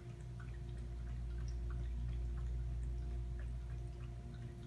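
Room tone: a steady low hum with faint, scattered small clicks.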